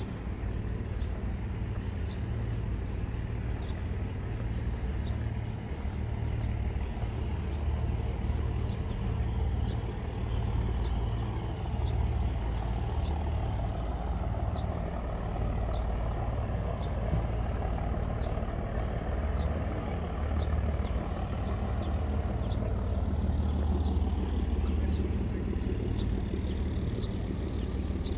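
Outdoor city ambience: a steady low rumble of traffic, swelling somewhat in the middle, with short high chirps repeating about once a second.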